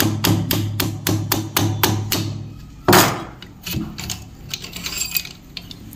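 Sewing machine running over a low hum, its mechanism knocking about four times a second, the sign the repairman gives for the shuttle hook's link catching at the top so that the machine runs jerkily. The running stops about two and a half seconds in; a single loud knock follows, then a few light metal clicks.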